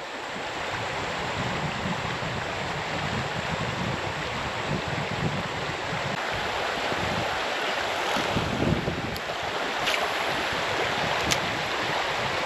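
Steady rush of flowing creek water around a drifting fishing raft, with a few faint ticks in the second half.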